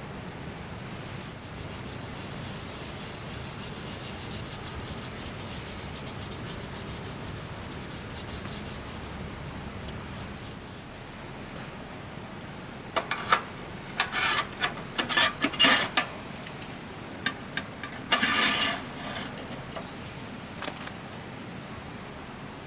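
Steady scraping or rasping rub for about ten seconds, followed a few seconds later by a quick run of sharp clicks and knocks, the loudest sounds here.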